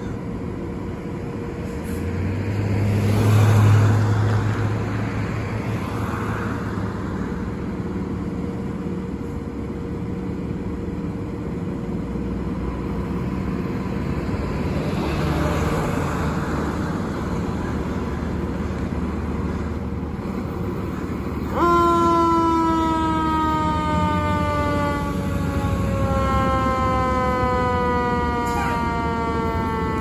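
Road traffic passing, with one vehicle going by loudly about three seconds in and another around the middle. About two-thirds of the way through, a fire engine's siren comes on suddenly, several pitches together sliding slowly and steadily downward.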